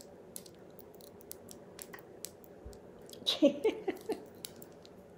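Faint scattered clicks and small handling noises, then a short burst of soft laughter about three seconds in.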